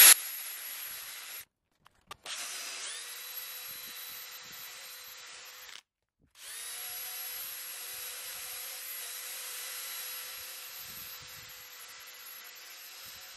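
Cordless drill spinning a stiff nylon brush attachment, scrubbing caked dirt off a teak deck tile: a steady motor whine with a brushing hiss. It breaks off twice briefly, and the whine rises again each time the drill spins back up.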